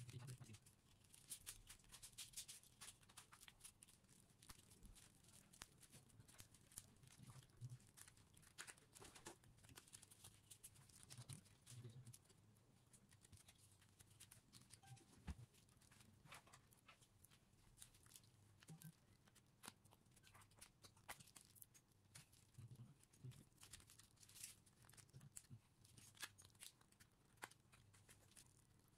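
Plastic screen bezel of a Dell Inspiron 3511 laptop lid being pried away from the LCD with a playing card: faint scraping with many small clicks and crackles as the bezel comes loose.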